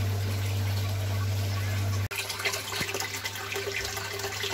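Aquarium aeration humming steadily, with bubbling water. About two seconds in the hum drops abruptly, leaving a quieter hum under crackling, bubbling water.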